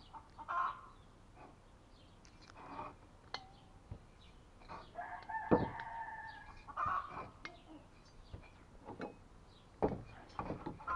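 Chickens clucking, with one longer held call about five seconds in that fits a rooster's crow. Scattered clicks and knocks are also heard, the loudest about five and a half seconds in.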